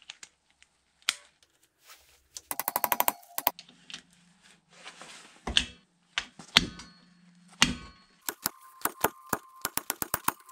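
Hand tools working on a motorcycle engine: a socket ratchet clicking in quick runs, with a few sharp metal knocks between the runs.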